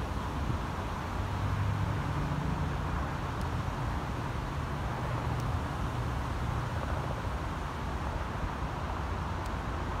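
Wind buffeting the microphone over a steady low rumble, which swells briefly about two seconds in.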